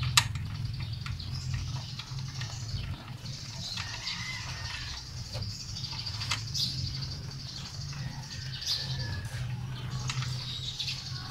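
Occasional sharp clicks and knocks of hand tools on metal as a mechanic works on the belt and pulleys of a Toyota 5K engine that is switched off. The loudest click comes just after the start, over a steady low hum.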